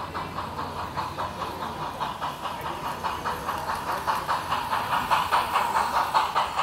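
LEGO model steam locomotive and passenger cars running on plastic LEGO track: an even clatter of about five beats a second over a steady hum, growing louder as the train comes closest.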